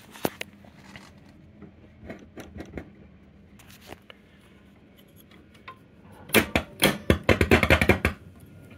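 Piano-key selector buttons on a 1960 Grundig console radio clacking as they are pressed, a quick run of loud clicks in the last few seconds. A few lighter clicks come earlier, over a faint steady hum.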